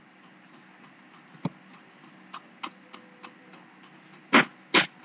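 Computer keyboard keys clicking: scattered single keystrokes, a sharper one about a second and a half in and two louder ones near the end.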